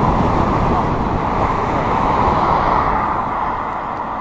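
Steady rush of wind and road noise on a bicycle-mounted camera's microphone while riding, with a car passing alongside; it eases off near the end as the bike slows towards the lights.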